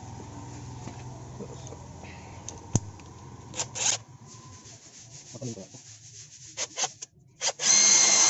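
Scattered light clicks and taps, then, near the end, a cordless drill starts and runs steadily with a high whine as it drills into a broken-bolt hole in a metal bracket plate on the engine's front.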